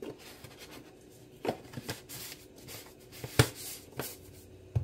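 Kitchen handling noises: a handful of light clicks and knocks with some rustling as seasoning and cornstarch containers are handled on a countertop. The sharpest knock comes a little past the middle.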